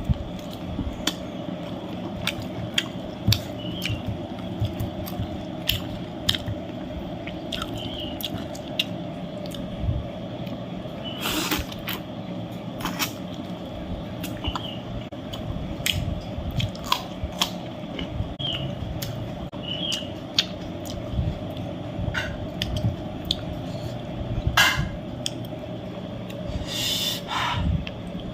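A person eating with many short wet chewing and smacking sounds and scattered clicks, over a steady low background hum.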